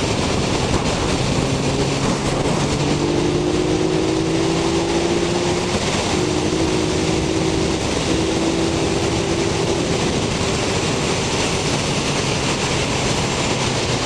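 Yamaha XSR900 motorcycle riding at speed: heavy wind rush over the on-bike microphone, with the inline-three engine's note underneath, climbing gently and then holding steady before fading into the wind about ten seconds in.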